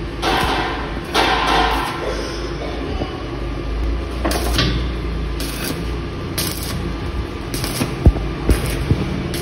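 Stick (arc) welding on steel square tubing: the arc crackling and hissing, swelling and fading in surges, with a few sharp knocks near the end.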